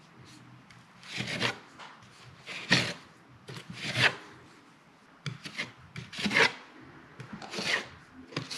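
Steel drywall taping knife scraping joint compound across a mesh-taped drywall joint, about six strokes roughly a second and a half apart: the first coat being pressed into the tape.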